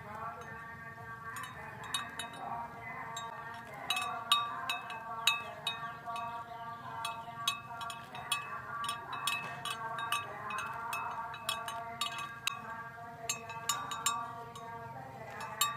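Several bells worn by cattle ringing and clanking irregularly, with sharp strikes and overlapping ringing tones.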